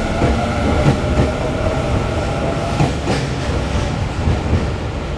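Electric commuter train of the Tobu Skytree Line moving through the station, with a steady rumble and its wheels clacking over rail joints.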